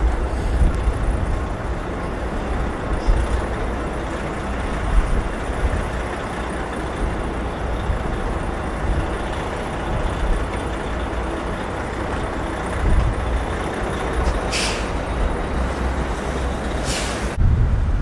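Blizzard wind rumbling on the microphone over a steady wash of city traffic noise, with two short hisses near the end.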